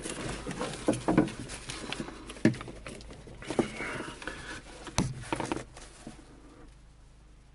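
Scattered clicks and knocks of handling inside a glider cockpit, growing quieter near the end.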